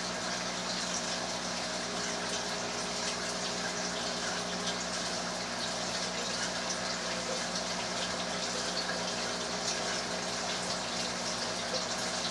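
A modified Prusa Mendel RepRap 3D printer running while it prints a calibration cube: a steady whirring hum with a hiss over it, from its motors and fan.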